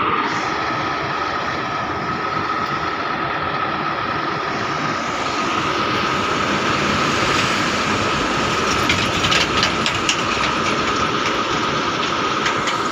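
A heavy vehicle running: a constant mechanical rumble with a steady whine on top, and a short burst of rattling clicks about two-thirds of the way through.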